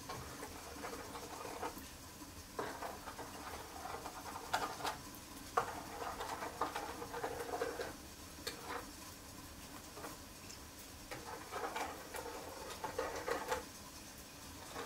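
A spoon stirring a yeast sponge of yeast, water, sugar and flour in a bowl, scraping and clicking against the bowl in short runs with pauses between them.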